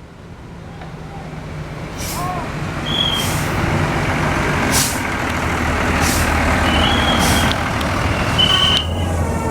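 A large bus approaching, its engine and road noise growing steadily louder, with several short sharp hisses of air.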